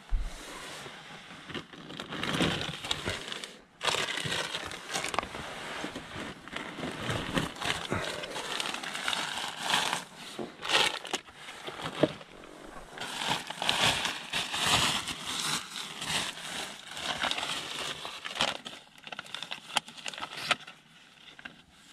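Plastic bags and a plastic food packet being handled and crumpled, giving irregular crinkling rustles that die down near the end.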